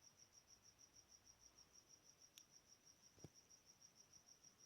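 Faint cricket chirping: a thin, high-pitched trill pulsing rapidly and evenly. A soft click about halfway through and a short low thump a little later.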